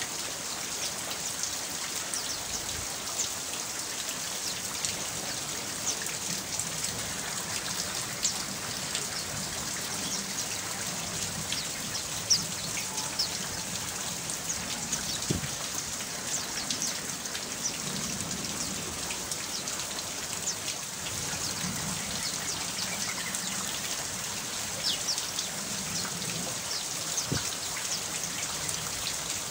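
Steady rain falling, with many small, sharp drop impacts over an even hiss: a rain-sound recording played as 'therapy' to calm cage birds and prompt them to sing.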